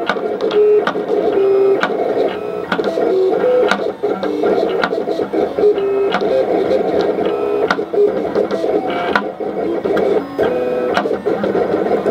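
Vinyl cutting plotter cutting lettering into vinyl: its motors whine in short steady tones that jump in pitch every fraction of a second as the blade carriage changes direction, with frequent sharp clicks.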